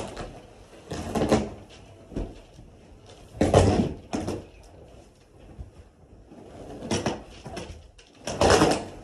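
Old carpet and its foam pad being pulled up, folded back and dragged across the floor: a series of rustling, scraping swishes with low thumps. The loudest come about three and a half seconds in and near the end.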